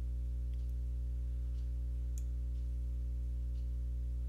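Steady low electrical hum with evenly spaced overtones, picked up by the recording chain, with a few faint computer-mouse clicks as the view is orbited.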